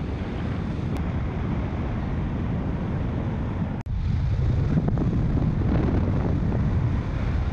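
Wind rushing over a camera mounted outside a moving car, with steady road and tyre noise. The sound drops out for an instant about four seconds in, where the footage cuts.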